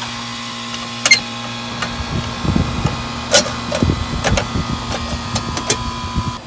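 Carrier 38YCC heat pump outdoor unit starting up. The compressor's steady hum sets in at once and the condenser fan spins up, with a few sharp clicks and irregular low knocks in the first seconds. The unit has a newly replaced defrost control board.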